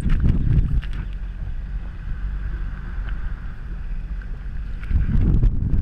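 Wind rumbling on the microphone over a steady hum from a jet ski, the rumble strongest at the start and again near the end.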